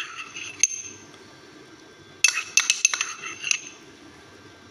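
Kitchen utensils clinking against a glass mixing bowl and dishes: a couple of sharp clinks at the start, then a quick run of clinks in the middle.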